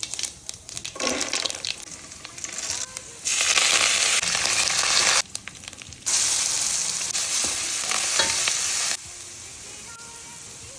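Ingredients frying in hot oil in a pan while being stirred: crackling and spattering at first, then two loud stretches of steady sizzling that start and stop abruptly, with a quieter stretch near the end.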